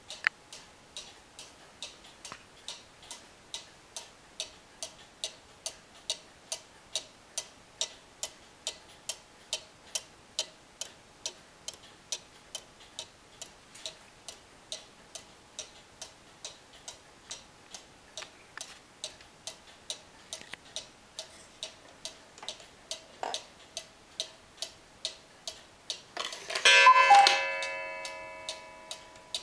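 Carved-wood cuckoo clock ticking steadily, about two ticks a second. Near the end the cuckoo sounds once, a high note then a lower one, followed by a ringing that dies away over a couple of seconds.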